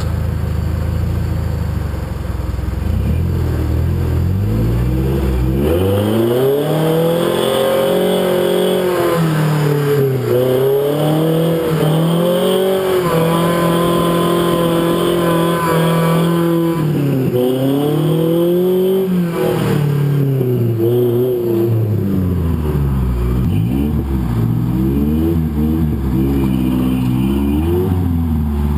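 Rock-crawling buggy's engine revving up and down over and over as it climbs over boulders. It runs low for the first few seconds, then swings up in repeated surges, holding high revs for a few seconds in the middle, before dropping back to lower, uneven revs.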